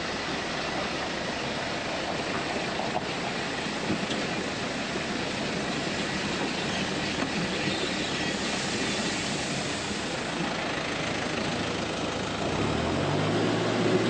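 Grain pouring from a trailer hopper into a running Rodono Xtend drive-over grain conveyor, a steady hiss. Near the end a low engine hum rises in pitch and then holds.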